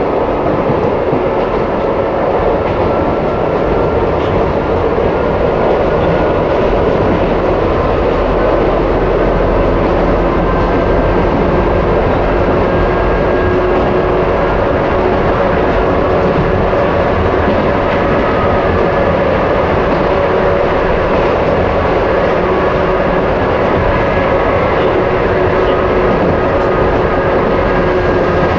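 Izuhakone Railway 1100 series (ex-Seibu 701 series) electric train running steadily at speed, heard from inside the cab of its motor car: a steady whine from the traction motors and gears over the rumble of the wheels on the rails.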